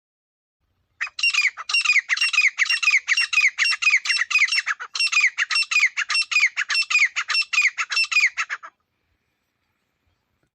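Teetar (francolin) calling: a fast run of harsh, repeated downward-falling notes, about four a second, with a short break midway. It stops abruptly after about seven and a half seconds.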